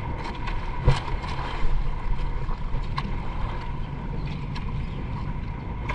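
Steady low rumble of a small fishing boat at sea, with wind and water noise. There are a couple of sharp knocks, about a second in and again around three seconds.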